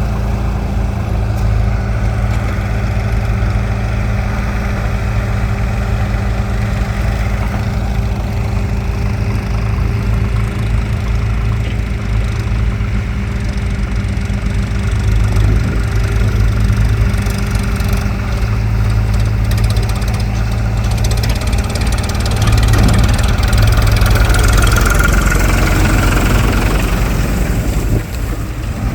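Diesel engines of a backhoe loader and a tractor running steadily while the tractor's trolley is loaded. The engine sound grows louder and harsher for about five seconds near the end, then drops back.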